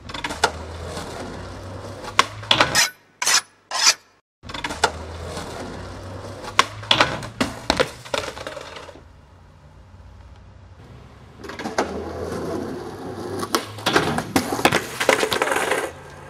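Skateboard wheels rolling on concrete, each run ending in a cluster of sharp clacks and knocks as the board strikes the concrete stairs and the skater falls. This happens three times, with short breaks between.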